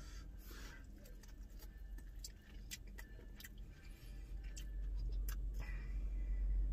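Approaching train: a low rumble that grows louder over the last few seconds, with scattered light clicks and ticks throughout.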